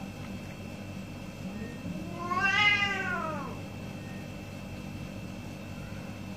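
Domestic cat giving one drawn-out angry yowl that rises and then falls in pitch, about two seconds in, lasting just over a second: a threat call in a face-to-face standoff with another cat.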